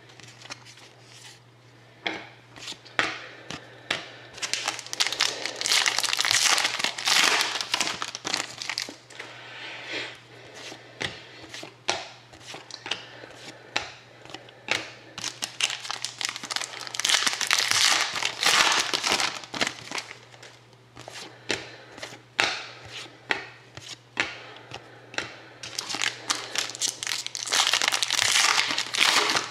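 Foil trading-card pack wrappers crinkling and tearing as packs are opened. There are three bouts about ten seconds apart, the last near the end, with scattered clicks of cards being handled in between.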